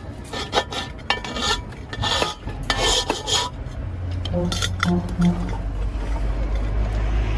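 Rapid metallic clinks and scraping of hand tools working wood, followed from about four seconds in by a steady low rumble.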